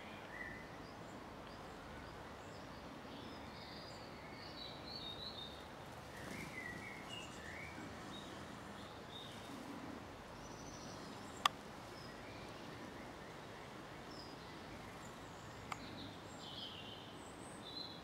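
Garden ambience: a steady background hiss with scattered short bird calls and song phrases from songbirds. A sharp click about two thirds of the way through is the loudest thing, with a fainter one a few seconds later.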